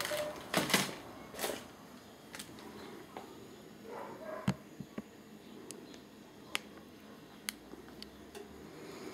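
Plastic wrapper of a Maggi instant-noodle packet being handled and turned over, giving scattered faint crinkles and clicks, the louder ones in the first second or so.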